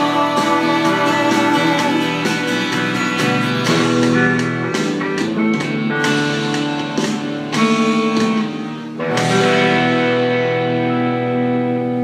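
Guitar-led rock song in an instrumental stretch with no vocals. About nine seconds in, a chord is struck and left to ring, fading slowly.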